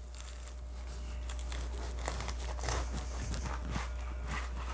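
A kitchen knife sawing through a toasted-bread sandwich, crisp crunching and crackling as the toast crust is cut.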